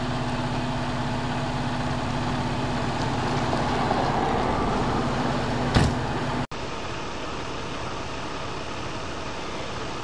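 Fire engine's engine idling with a steady low hum, a single short sharp knock coming just before the sound cuts off about six and a half seconds in. After the cut, a steadier, slightly quieter rumble of idling vehicles.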